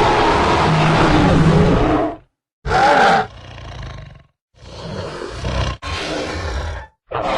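Spinosaurus film dinosaur sound effects: a long, loud roar that ends about two seconds in, then after a brief gap a short sharp call falling in pitch, followed by two low growls.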